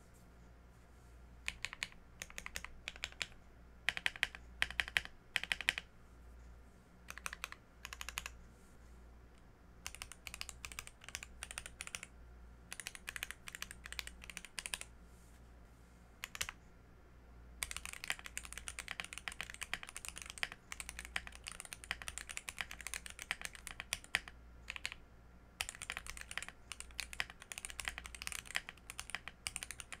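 Typing on a Glorious GMMK Pro mechanical keyboard with stock, unlubed Gateron CJ linear switches on a polycarbonate plate with a tape-modded PCB. Short bursts of keystrokes with pauses between them through the first half, then fast continuous typing from a little past halfway.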